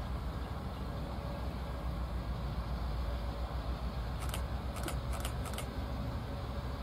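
Steady low rumble of a moving vehicle, with four quick light clicks a little past halfway.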